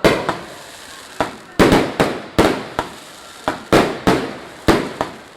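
Fireworks going off in a quick, uneven string of about a dozen loud bangs, each trailing off in an echo.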